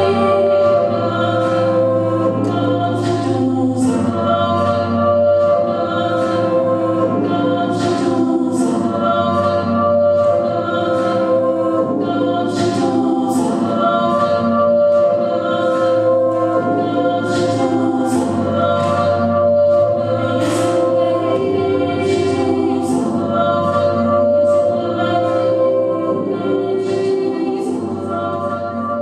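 A woman singing a slow melody while accompanying herself on a Nord electric stage piano, with the piano's low notes held beneath the voice.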